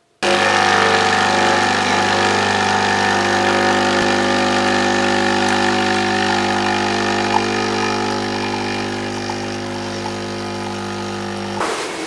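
Tchibo capsule coffee machine's pump running as it brews coffee into a mug: a steady hum that starts suddenly and stops shortly before the end.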